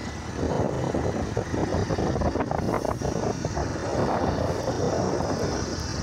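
Motorcycle engine running steadily while riding, mixed with a constant rush of road and wind noise.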